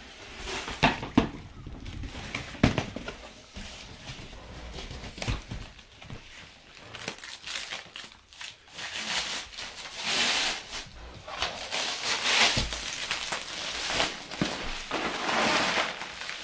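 Plastic wrapping on a rolled, compressed twin spring mattress crinkling and tearing as it is cut open and pulled off, denser and louder in the second half. A few sharp knocks in the first few seconds.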